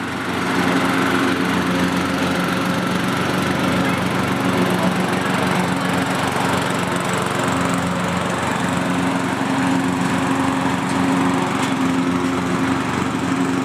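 Engine of an early-1990s Murray riding lawn mower running steadily while the mower is driven, its pitch wavering slightly.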